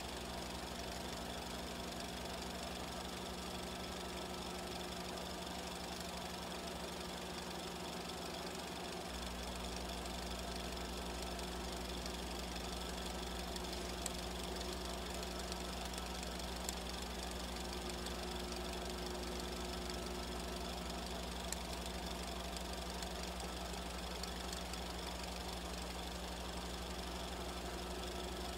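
Steady machine hum with an even running rattle that does not change, and a few faint ticks; the deepest part of the hum steps up slightly about nine seconds in.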